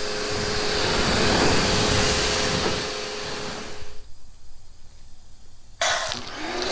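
Electric pressure washer running and spraying water onto a car: a steady hiss of spray with the motor's whine under it. The spray and motor stop about four seconds in, then start again with a sudden burst near the end.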